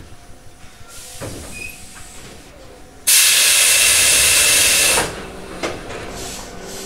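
A loud burst of compressed air hissing out of a Tobu 8000 series train's pneumatic system while it stands at a station, starting and cutting off abruptly after about two seconds.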